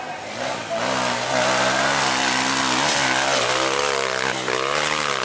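Dirt bike engine revving hard under load as it climbs a steep dirt slope, steady at first, then rising and falling in pitch several times in the second half as the throttle is worked.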